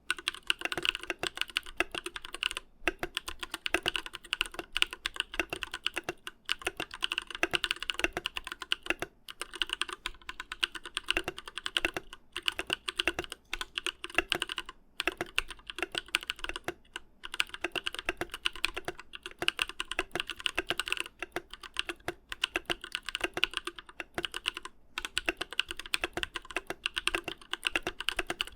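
Fast, continuous typing on an ID80v1 mechanical keyboard with lubed Durock Sunflower POM tactile switches and SA keycaps, in its stock state before the PE foam and tape mods, which the owner finds hollow-sounding. The typing stops briefly every few seconds.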